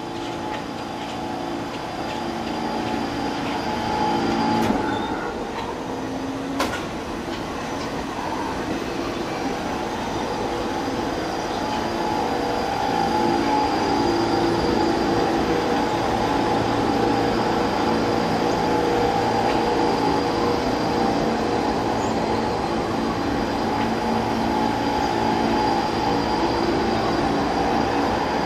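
New York City subway train running past on the tracks, growing louder over the first dozen seconds and then holding steady, with two sharp clicks a few seconds in.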